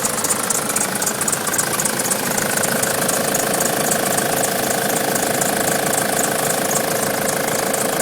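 Nissan Patrol 3-litre four-cylinder turbo diesel idling steadily. Over it comes a fast, rhythmic high-pitched squeak, about five a second, which fades after about two seconds.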